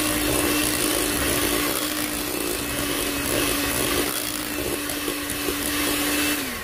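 Electric hand mixer running at a steady speed, its beaters working almond flour into a batter of creamed butter and eggs; the motor winds down and stops near the end.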